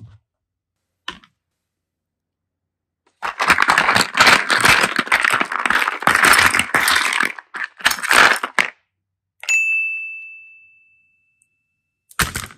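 Plastic toy building blocks tumbling and clattering into a plastic basket for about five seconds, then a single bright ding that rings out and fades over about two seconds, and a brief clatter near the end.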